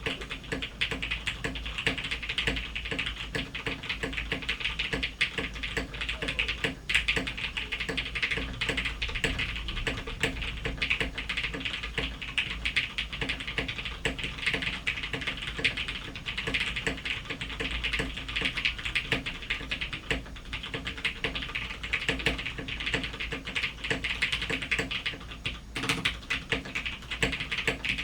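Fast continuous typing on a top-mounted TKL mechanical keyboard with a polycarbonate plate, lubed Cherry MX Clear tactile switches and PPS keycaps: dense overlapping key clacks with the occasional deeper stabilised key.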